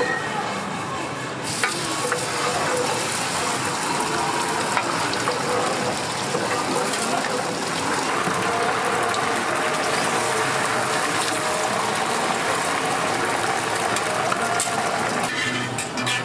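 Egg batter sizzling steadily on a hot flat-top griddle. The sizzle brightens about a second and a half in and drops away near the end, with a few clicks and scrapes of metal tongs on the griddle.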